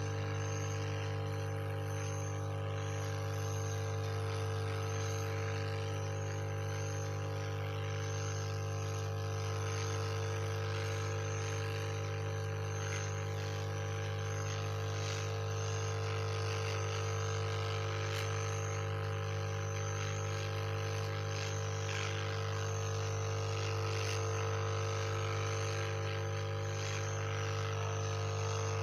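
Hot-air rework station blowing: a steady low hum with an even hiss of air, heating the phone's back cover to soften the glue that holds it.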